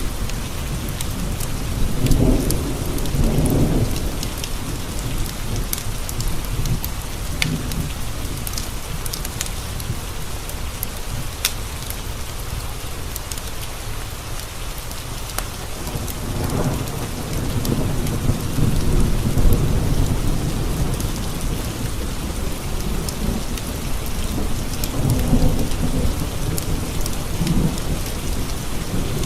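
Steady rain against window glass with three rolls of low thunder, one early, one about halfway through lasting several seconds, and one near the end. Scattered sharp crackles from a fireplace fire run through it.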